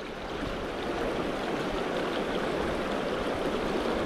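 Fast river current rushing steadily through shallow, rocky rapids.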